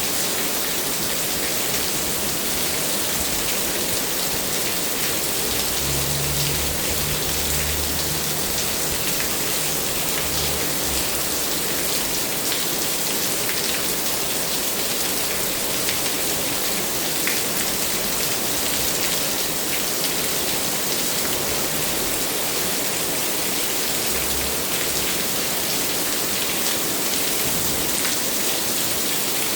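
Steady heavy rain falling and pattering on surfaces, with a faint low rumble about six to eleven seconds in.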